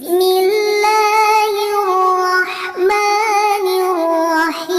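A woman's voice chanting Quranic recitation in melodic tilawah style: long held notes that waver and slide between pitches, with a brief break about three seconds in.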